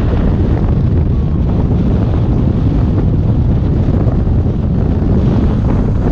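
Wind buffeting the microphone: a loud, steady, low rush of noise.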